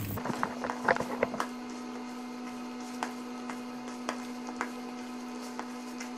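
Hand kneading raw beef mince mixed with beaten egg in a plastic bowl: soft wet squelches and clicks, a cluster of them in the first second and a half, then scattered ones, over a steady low hum.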